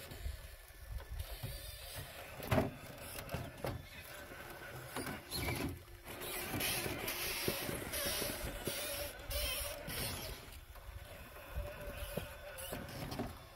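Axial SCX6 crawler's electric motor and gearbox whining in stop-start bursts as the truck climbs over rocks, with its tyres and chassis scraping and knocking on the stone. A sharp knock about two and a half seconds in is the loudest moment.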